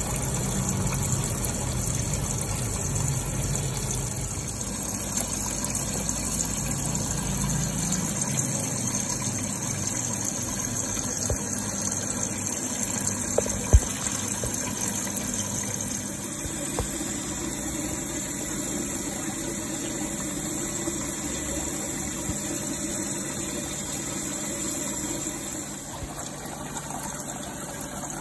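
Steady running water and pump noise of a recirculating crab-tank system, with water pouring into the tank from an inlet pipe. A low hum fades after the first third, and a single sharp click comes about halfway through.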